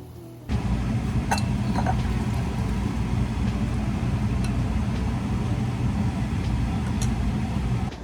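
Car driving: a steady low road-and-engine rumble that starts abruptly about half a second in and cuts off just before the end.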